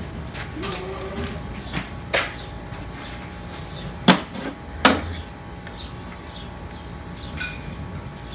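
Metal parts of a tractor hydraulic pump being handled on a workbench: a few sharp metallic clanks and knocks, the loudest three close together about four seconds in, one with a brief ring.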